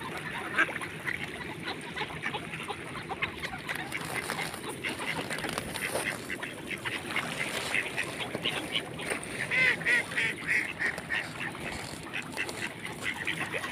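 A flock of mallard ducks quacking and calling, many short quacks overlapping, busiest and loudest about ten seconds in.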